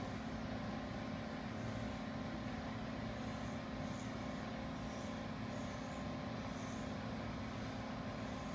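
A steady mechanical drone: an even hiss over a low hum.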